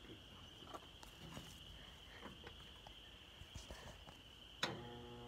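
Faint steady high whine with light footsteps on gravel. About four and a half seconds in comes a click, then a steady low electrical buzz from a battery charger charging a riding mower's dead battery.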